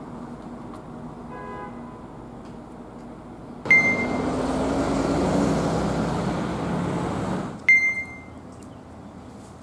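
Outdoor road traffic: a quiet steady background, then for about four seconds a louder passage of passing-vehicle noise with a low engine tone slowly rising in pitch, which starts and stops abruptly with a short high beep at each end.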